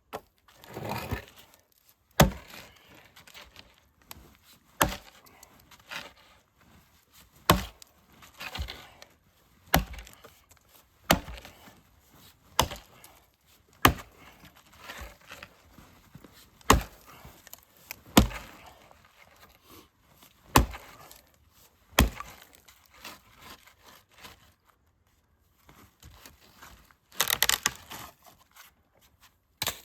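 Gransfors Bruks Small Forest axe chopping and splitting firewood: about a dozen sharp strikes into wood at an uneven pace, one every one to three seconds. A short spell of rustling and cracking comes near the end.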